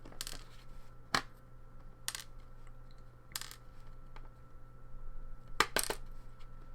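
Sharp metallic clicks and clinks of small lock parts being handled as a pin-tumbler lock is taken apart, a few scattered taps with a quick cluster near the end.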